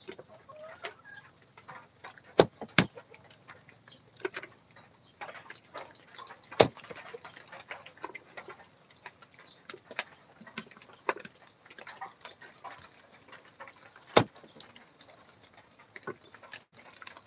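Kitchen handling sounds as sweet potatoes are prepared at a counter: scattered clicks and light knocks, with a few sharp, loud knocks, two close together a couple of seconds in, one around the middle and one later on.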